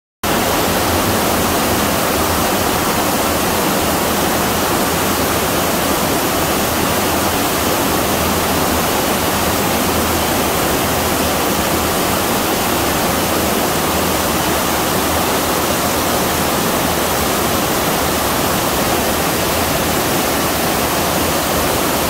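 Waterfall pouring: a loud, steady, even rush of falling water that cuts in suddenly just after the start.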